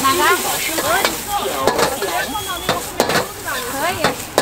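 Noodles and bean sprouts sizzling in a hot wok as they are stir-fried, with a metal ladle scraping and knocking against the wok several times.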